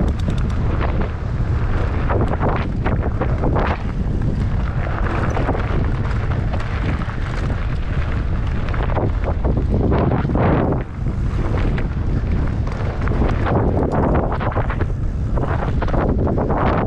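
Heavy wind buffeting and rumbling on the microphone of a camera carried on a mountain bike ride, swelling in irregular gusts, with a few sharp rattling clicks near the start.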